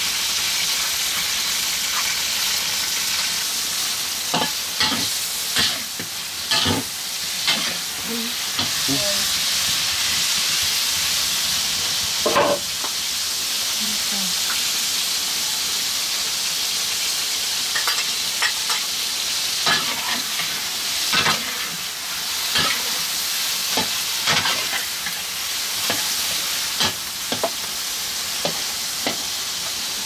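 Tomato slices sizzling as they fry in a metal wok, with a steady hiss. A metal spatula scrapes and clinks against the pan again and again as they are stirred.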